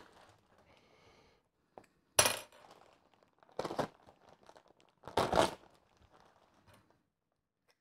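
A plastic bag full of small plastic building bricks being handled: three short bursts of crinkling plastic with the bricks clinking against each other, about two, three and a half and five seconds in.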